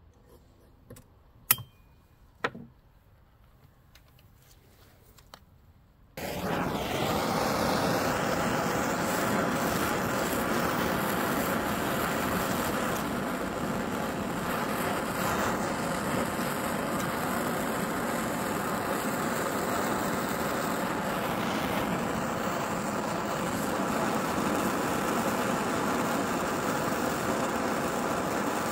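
A few light clicks of tools, then about six seconds in a handheld gas torch lights with a sudden start and burns with a steady, even rushing hiss, its flame played into a chainsaw exhaust deflector to burn off carbon.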